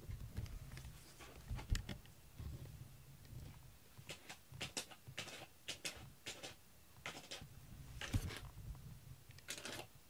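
Irregular short scratching rustles, about a dozen over the last six seconds, after a few low handling thumps in the first two seconds.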